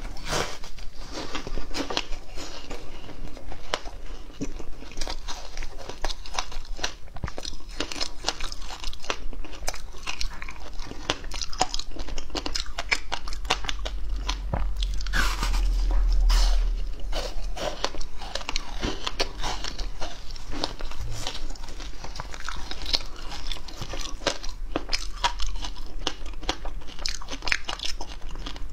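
Biting and chewing a slab of frozen passion fruit ice, pulp and seeds frozen solid: a dense run of sharp crunches and cracks as the ice breaks between the teeth.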